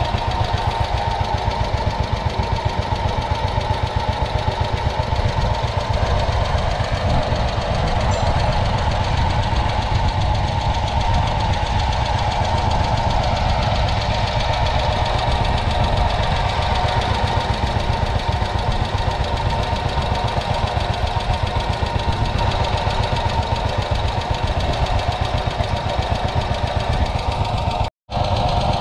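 A 1953 Ransomes MG6 crawler tractor's 0.6-litre single-cylinder petrol engine idling at a standstill, with a steady, rapid beat.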